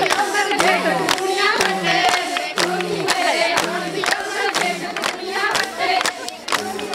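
Group of women singing a Punjabi boli in chorus, with a crowd clapping along in a quick steady rhythm.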